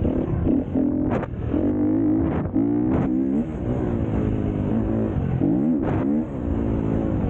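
A motor vehicle engine running, its pitch rising and falling repeatedly, with a few short sharp clicks on top.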